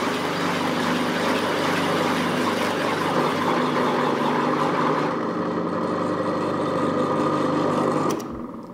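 Pillar drill running with a trepanning tool cutting a circle out of 6 mm acrylic sheet: a steady motor hum under a cutting hiss. The hiss eases about five seconds in, and the sound drops away sharply about eight seconds in.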